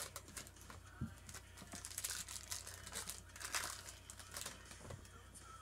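Foil trading-card pack wrapper crinkling in short, irregular bursts as it is handled and opened.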